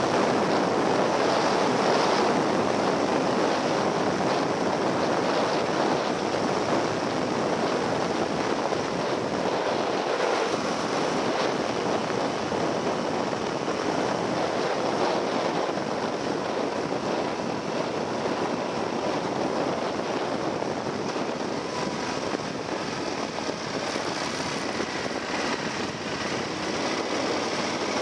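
Steady wind rush over the microphone and road noise from a Yamaha XT1200Z Super Ténéré motorcycle riding at speed, with no distinct engine note. A faint whine rises near the end.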